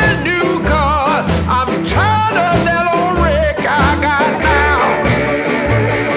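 Upbeat background music: a steady bass and drum beat under a wavering lead melody with strong vibrato.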